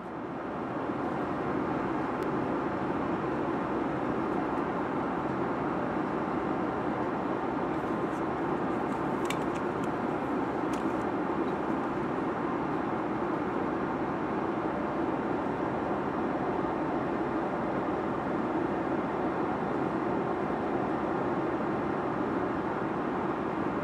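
Steady rushing noise of an airliner cabin in flight, the even din of airflow and engines, fading up at the start. A few faint clicks about nine to eleven seconds in.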